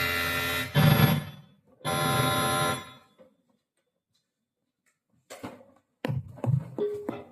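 Roland SPD-30 Octapad sounding through its amplified output as its pads are played. A sustained, tone-rich electronic sound is followed by a sharp hit about a second in and a second sustained sound. After a pause of about two seconds come several short knocks and taps, with one brief tone near the end.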